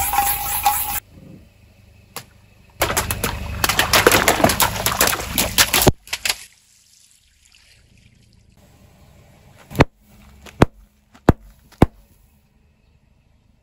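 A punctured aerosol can hissing out for about a second, then water-filled long balloons bursting and spraying water noisily for about three seconds. Near the end come four sharp pops as a car tyre bursts packets of small coloured beads.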